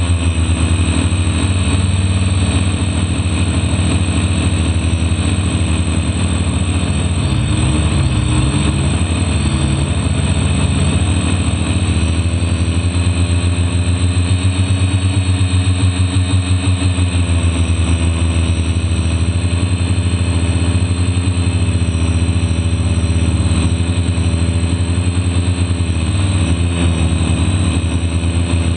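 DJI F450 quadcopter's electric motors and propellers running steadily, heard close up from on board, with a constant high thin whine. The pitch wavers slightly now and then as the throttle changes.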